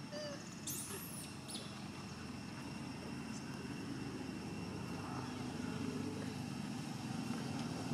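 Outdoor background: a steady low rumble that slowly grows louder, under two faint steady high-pitched tones, with one brief high squeak about a second in.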